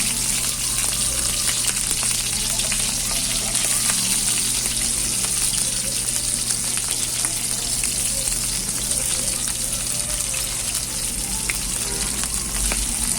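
Food frying in hot oil in a pan: a steady sizzle.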